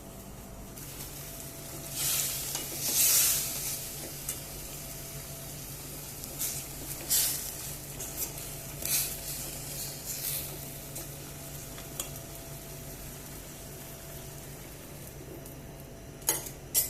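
Food sizzling in a pot or pan while a spoon or spatula stirs and scrapes it: a burst of strokes a couple of seconds in, then single scrapes every second or two and a few sharp clicks near the end, over a steady hiss and low hum.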